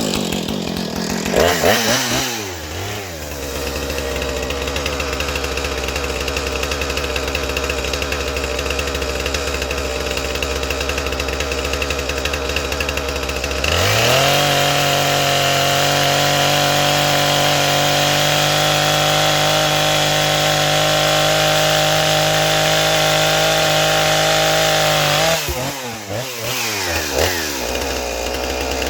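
Two-stroke chainsaw starting with a couple of quick revs, idling, then held at full throttle for about ten seconds, as when bucking a cedar log to length. It drops back to idle and is revved briefly again near the end.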